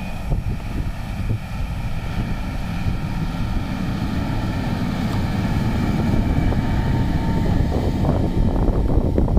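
Large farm tractor's diesel engine running as it pulls a slurry tanker across a field. The steady rumble grows gradually louder as the tractor approaches and passes close by.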